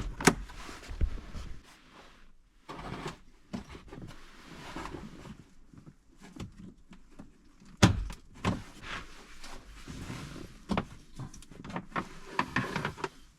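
Hands working the plastic interior parts of a car to reach the cabin air filter cover: scattered clicks, knocks and rustling, with sharp thunks at the start and about eight seconds in.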